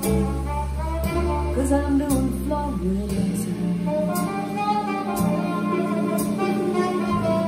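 Recorded music with guitar and a deep bass line, played through a pair of ATC SCM19 v2 standmount loudspeakers and heard in the room. The bass notes are held and change about once a second.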